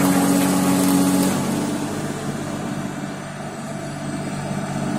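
Excavator with a skeleton screening bucket running steadily, its engine and hydraulics giving a low steady hum. Rattling of loose rock in and through the bucket is loud at first and dies away over the first second or two.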